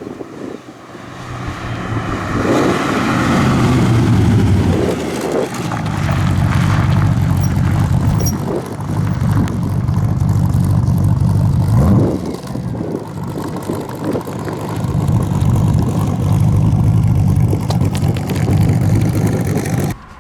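Tuned 4.6-litre Rover V8 in a Mk1 Ford Capri, running on the road through a custom stainless steel exhaust. It builds up over the first few seconds, then runs steadily under load, with brief dips about five and twelve seconds in.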